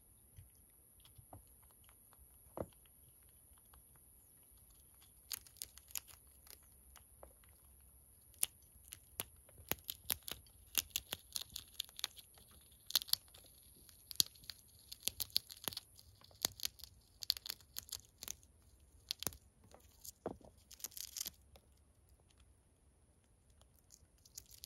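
Chipmunk gnawing and tearing open a peanut shell: quick, irregular little crackles and crunches, thickest through the middle stretch, over a steady high hiss.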